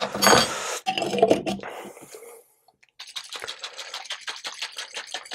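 Plaster mix being stirred briskly in a small jar: a spoon scraping and clicking against the jar in a quick, even rhythm of several strokes a second, starting about three seconds in. Before that come a few scrapes and knocks as more plaster powder is spooned in to thicken the mix.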